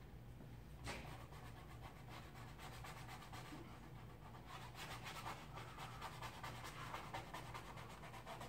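Paintbrush rubbing across a canvas in quick repeated strokes, starting about a second in. A low steady hum underneath.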